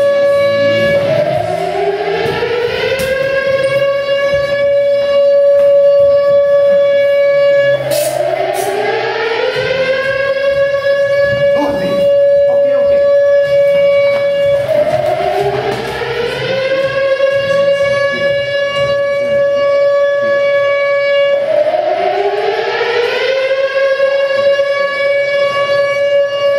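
Air-raid siren sound effect wailing: a tone rises and then holds steady, starting over about every seven seconds, four times.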